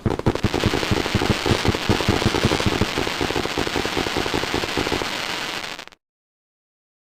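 Fireworks going off in a dense, rapid barrage of crackling pops and bangs, many per second, which cuts off suddenly near the end.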